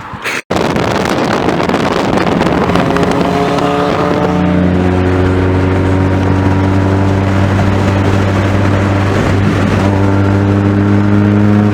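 Car engine running under steady load, likely the car accelerating. Its note comes up out of a rushing noise about four seconds in and rises slowly in pitch.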